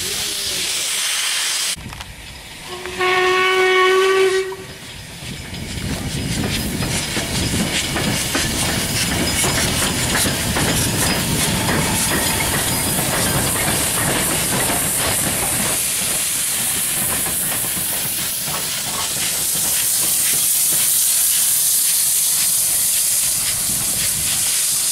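LMS Jubilee class 4-6-0 steam locomotive 45596 'Bahamas' sounding a single steam-whistle blast of about a second, about three seconds in. It then rumbles slowly past with rail clatter and hissing steam, the hiss growing stronger near the end.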